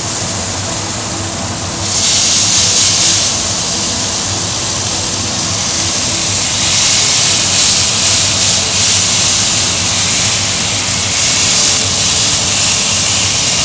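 Flat iron steak searing in hot oil in a cast iron pan: a loud, steady sizzle that gets louder about two seconds in.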